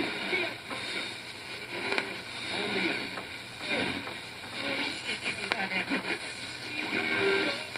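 Radio receiver giving out strange noises: steady hiss with wavering, warbling voice-like tones that never settle into clear speech.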